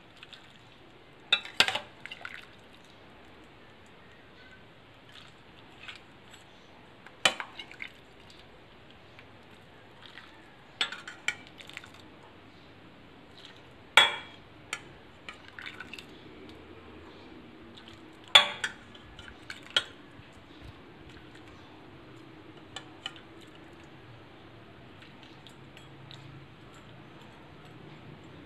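Metal ladle clinking against a ceramic bowl and steel pot as soup is ladled out, with broth dripping and splashing between scoops. The sharp clinks come singly or in quick pairs, a few seconds apart.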